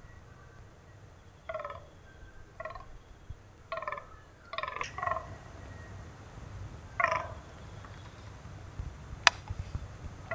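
A series of six short animal calls, each a fraction of a second, spread over the first seven seconds. A single sharp click comes near the end and is the loudest sound.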